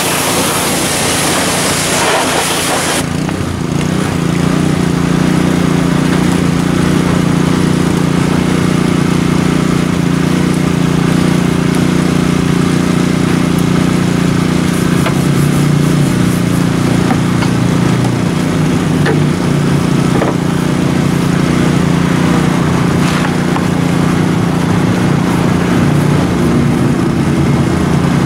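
Pressure washer spraying water with a loud hiss that stops abruptly about three seconds in, while an engine runs steadily underneath and on afterwards.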